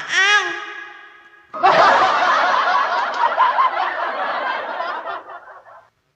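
Laughter from many voices at once, starting about a second and a half in and fading out near the end.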